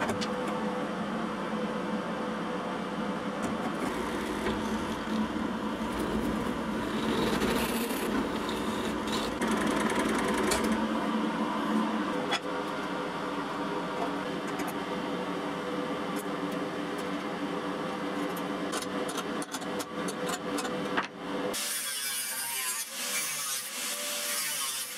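Workshop tool noise from working steel: sawing, filing and rubbing, cut together from several shots. About 21 seconds in it changes suddenly to a thinner, hissing sound.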